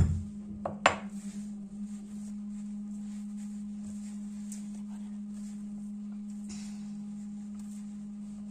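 Three knocks of a stone pounder on dried meat laid on a stone grinding slab in the first second, then a steady low hum.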